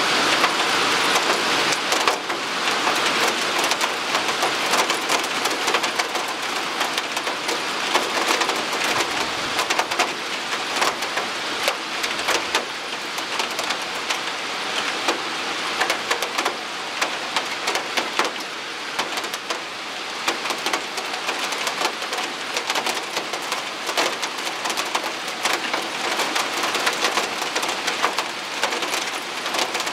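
Heavy storm rain: a dense steady hiss with many sharp ticks of drops striking window glass.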